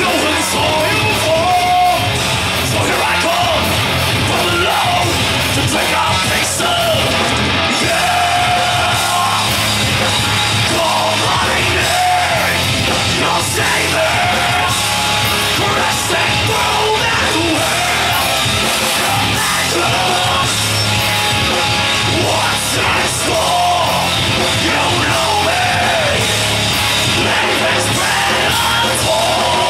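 Live heavy metal band playing at full volume: electric guitar, bass and drums under harsh yelled vocals.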